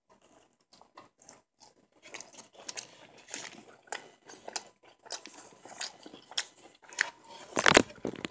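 Chewing a mouthful of crispy fried chicken sandwich close to the microphone: irregular small crunches of the breading and wet mouth sounds, with a louder sound near the end.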